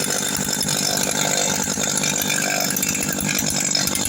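Stihl FS 160 brush cutter's two-stroke engine running steadily, with a fast, even firing rattle. Its centrifugal clutch springs and shoes have just been refitted the right way round, and the owner says it now runs fine.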